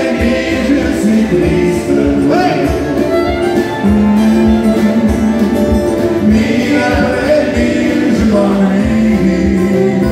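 Live acoustic country band playing: a man sings lead over fiddle and strummed acoustic guitars.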